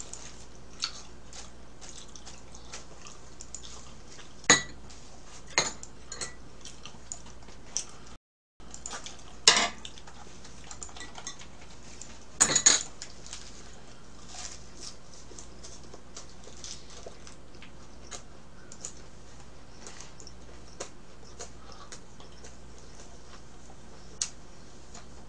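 Chopsticks clinking and tapping against small dishes and the griddle during a meal. There are irregular sharp clicks, a few of them louder, and the sound cuts out briefly near the middle.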